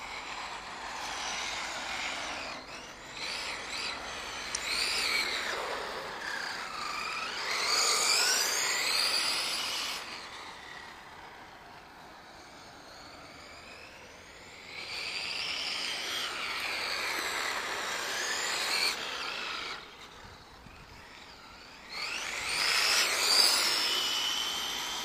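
Electric radio-controlled model car's motor and drivetrain whining as it is driven, the pitch rising and falling with each burst of throttle. It comes in three runs, with quieter lulls about ten seconds in and again near twenty seconds.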